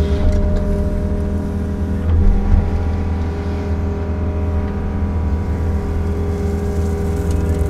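Excavator's diesel engine running steadily with its hydraulics working, heard from inside the cab while the bucket digs into a gravel pile and lifts a load.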